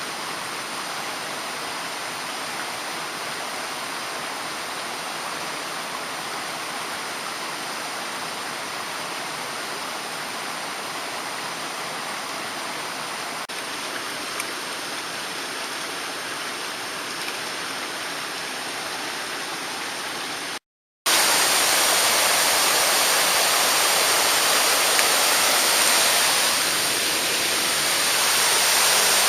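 Mountain stream water rushing steadily. It cuts out for a moment about two-thirds of the way through and comes back louder.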